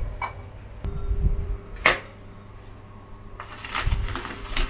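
Stainless mesh strainer handled over a pan of frying oil: a sharp metal tap about two seconds in, then crisp battered fried shrimp clattering from the strainer onto a plate near the end, over a faint steady hum.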